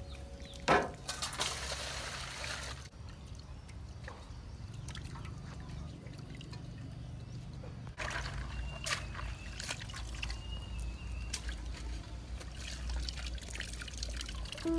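Water poured from a plastic dipper into an aluminium basin for about two seconds, just after a sharp knock. Later, hands slosh a bamboo basket around in the water with scattered splashes and clicks, and water drips as the basket is lifted out near the end.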